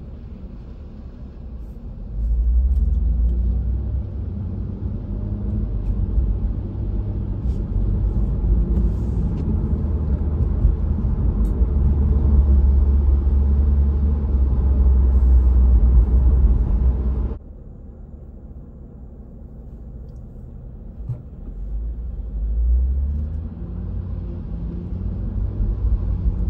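Low rumble of a car driving on a wet road, heard from inside the cabin. It gets louder about two seconds in as the car pulls away, drops suddenly about two-thirds of the way through, then builds again near the end.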